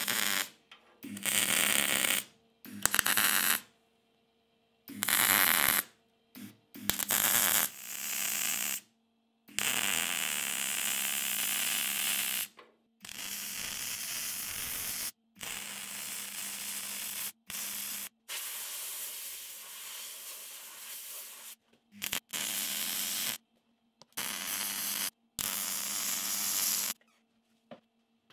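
MIG welder welding a new steel section into a rusted Land Rover chassis outrigger. The arc crackles and hisses in more than a dozen stop-start bursts, some short tacks under a second and some runs of a few seconds, with a steady low hum under each burst.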